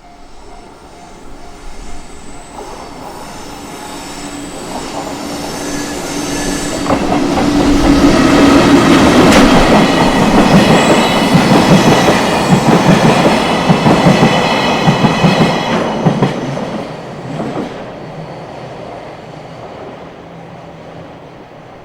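A train passing over a level crossing: its rumble builds, wheels clack rapidly over the rail joints, loudest from about 8 to 16 seconds in, with a thin high wheel squeal, then it fades away.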